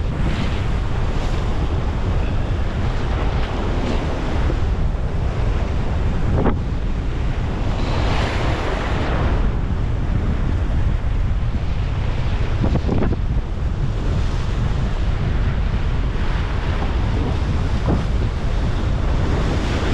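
Strong wind buffeting the microphone over waves washing onto the shore, with one louder wash about eight seconds in and a couple of short, sharp sounds.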